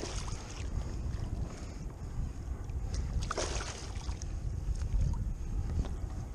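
A hooked striped bass splashing at the water's surface beside a kayak, with a splash near the start and another about three and a half seconds in, over a steady low rumble of wind on the microphone.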